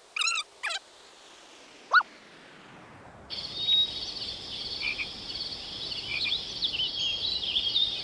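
Forest animal calls: a few short, wavering calls in the first second and a single rising call about two seconds in. From about three seconds in, a dense high chorus of chirps and trills sets in over a low rushing noise.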